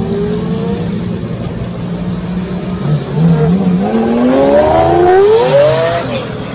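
Sports car engine revving hard as the car accelerates away, its pitch climbing over about three seconds and then falling near the end, as at a gear change.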